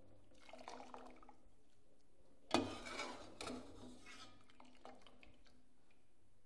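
Water dripping and splashing as squares of testaroli are lifted out of a pot of hot water with a perforated metal skimmer. There is a sudden sharper knock or splash about two and a half seconds in.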